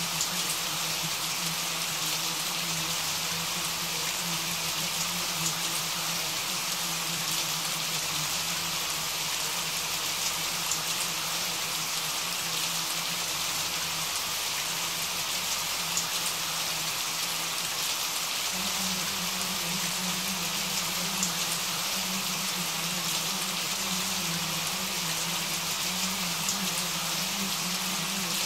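Steady rain falling: an even hiss with scattered sharper drop ticks. A low hum runs underneath and shifts a little higher in pitch about two-thirds of the way through.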